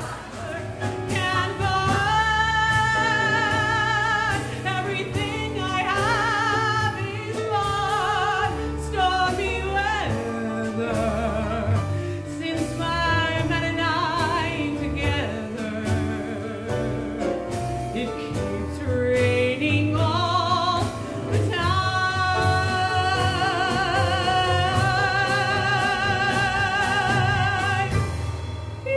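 A woman singing a song with wide vibrato on long held notes, backed by a live band with drums, piano and bass.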